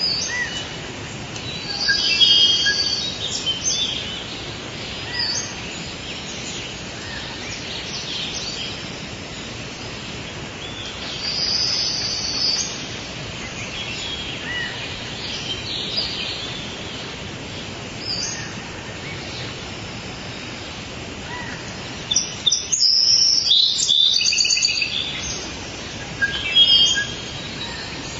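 Birds chirping and singing in short high phrases, with louder clusters of chirps now and then, over a steady even hiss.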